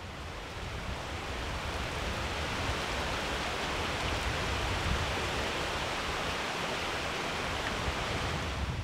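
A shallow creek running over rocks: a steady rush of water that swells in over the first couple of seconds and then holds.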